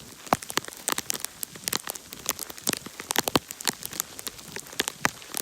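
Ice pellets striking the microphone and surfaces close by in rapid, irregular clicks and ticks, several a second, over a steady hiss of wind-driven precipitation.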